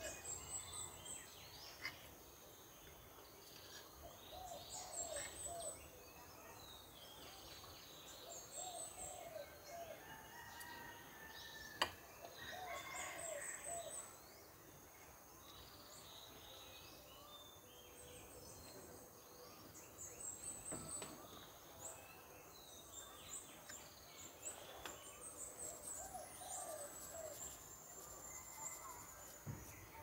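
Several wild birds calling together: a high trilled phrase repeating every few seconds, lower repeated calls in between, and a steady high-pitched whine beneath. One sharp click about twelve seconds in.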